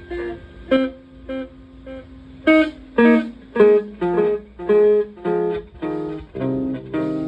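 Estruendo Selenita ring modulator/noise generator with delay sounding a run of short, pitched, plucked-sounding notes, about two a second, each starting sharply and fading, the pitch changing from note to note.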